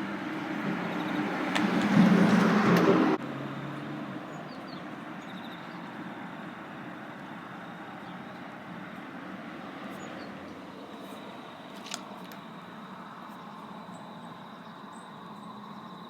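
A road vehicle passing close, getting louder over about three seconds and then cut off abruptly, followed by a steady, quieter outdoor background.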